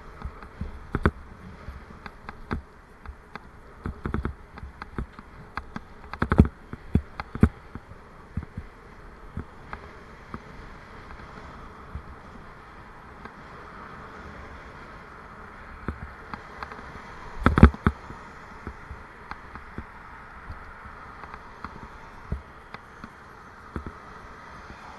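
Ride noise of a bicycle picked up by its mounted camera: a steady buzzing hum with irregular knocks and rattles as the bike jolts over the lane's surface, the two biggest jolts about six seconds in and about two-thirds of the way through.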